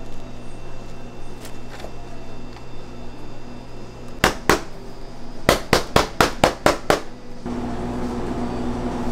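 Sharp knocks over a steady low hum: two close together about four seconds in, then a quick run of about eight more a second later.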